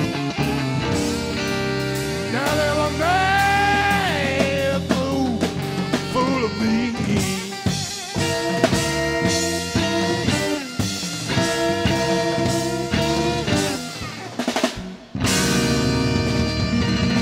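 Live blues band playing an instrumental passage, with a lead line that bends up into long held, wavering notes. The band drops out for a moment near the end, then comes back in.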